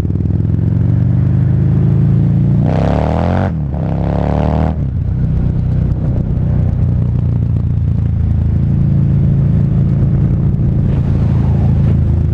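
Harley-Davidson V-Rod Muscle's liquid-cooled V-twin through Vance & Hines exhaust pipes, heard from the rider's seat while riding. About three seconds in the engine revs up, dips briefly for a gear change, and revs up again, then runs steadily at cruising speed.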